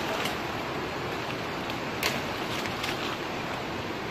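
Branches and twigs snapping and rustling as they are broken off by hand, with a few sharp cracks, the loudest about two seconds in and two more shortly after. A steady rushing background noise runs under them.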